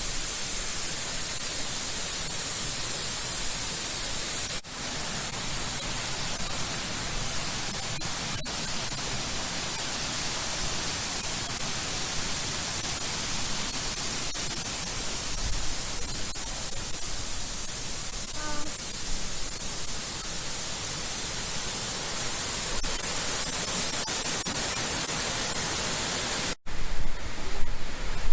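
Steady rushing roar of a waterfall, an even wash of noise with a strong high hiss, broken by brief cuts about five seconds in and near the end.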